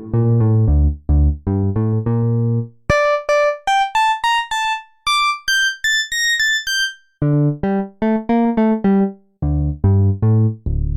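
Waldorf Pulse 2 analog monosynth playing a preset, one note at a time in short, detached notes. A low bass phrase comes first, then from about three seconds in a higher, rising melodic line of notes with a clicky attack, then low bass notes again.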